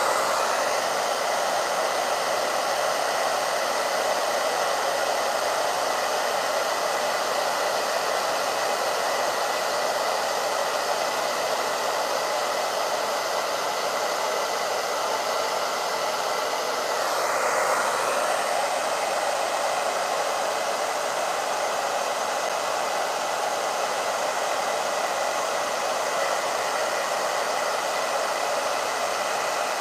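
Handheld hair dryer blowing steadily over wet acrylic pour paint: a continuous rushing hiss with a faint whine, swelling briefly about halfway through.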